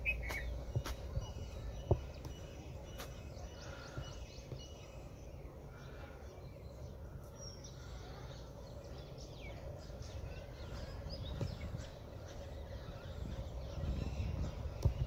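Outdoor ambience: a steady background hum and hiss with faint bird chirps scattered through it, a few light clicks in the first seconds and some low thumps near the end.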